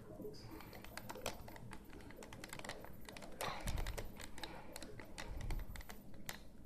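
Wire whisk stirring thick cake batter in a bowl, its wires clicking and tapping irregularly against the bowl.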